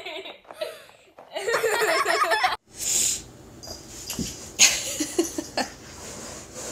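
A person laughing and giggling for the first couple of seconds. After a cut, quieter scuffling with a few soft knocks and short noisy bursts.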